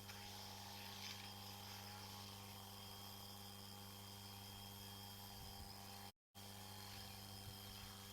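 Near silence: a faint steady electrical hum under a thin hiss. The sound cuts out completely for a moment about six seconds in.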